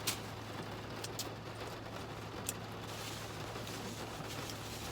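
Rain falling in a steady patter, with a steady low hum underneath and a few light clicks.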